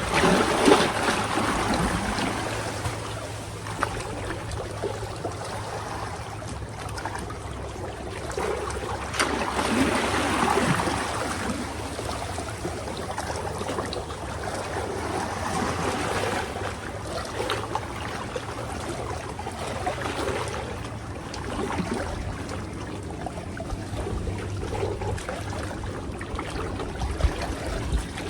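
Water sloshing and trickling in uneven swells around the legs of a person wading through water above the knees.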